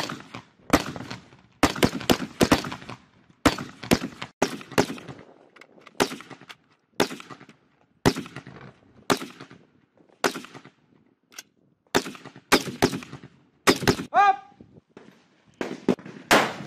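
Rifle fire from AR-pattern carbines: sharp shots in quick strings of two to four rounds, a string about every second, each crack trailing off in echo.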